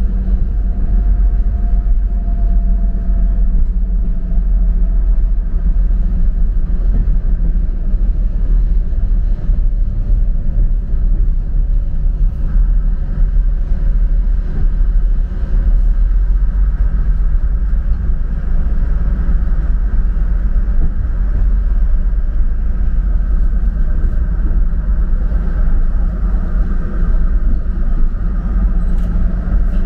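Diesel railcar's engine running steadily with the low rumble of the train rolling along the track, heard from inside the driver's cab.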